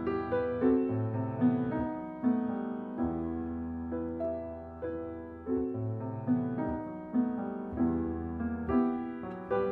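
Slow background piano music, notes and chords struck about once a second and left to ring.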